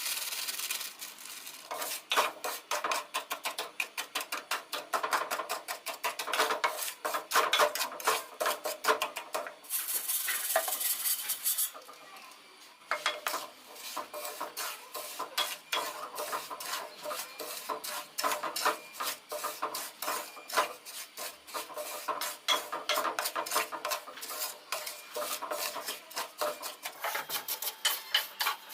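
A metal spoon stirring and scraping in a cooking pan in quick, repeated strokes, with a short hiss about ten seconds in and a brief pause just after.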